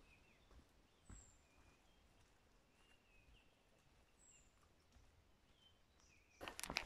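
Faint forest birdsong: a high, thin note sliding down, repeated about every three seconds, with soft scattered chirps. Near the end, loud crunching footsteps on a dirt and leaf-litter trail start up close.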